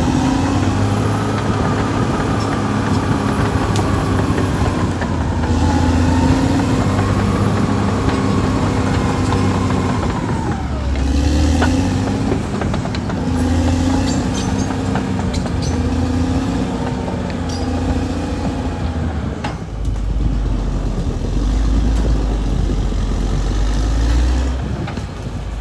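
Caterpillar D6R XL bulldozer's diesel engine running under working load, its pitch rising and falling repeatedly as the load and revs change, with a heavy low rumble and a few sharp knocks.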